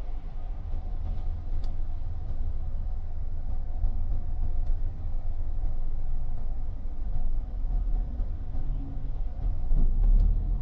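Low, steady rumble of a car driving on a wet road, heard from inside the cabin, with a few faint ticks.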